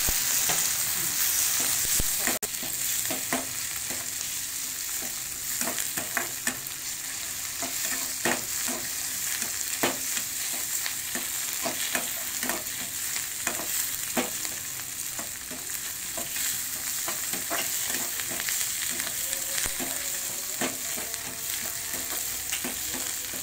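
Onions and tomatoes frying in oil in a steel kadai, sizzling steadily while a metal spatula stirs them, scraping and tapping against the pan every second or so. The sizzle is loudest in the first couple of seconds, as the tomatoes go in.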